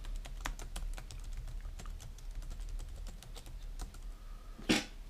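Typing on a computer keyboard: a quick run of irregular key clicks as a team name is entered into a spreadsheet. There is one short, louder sound near the end.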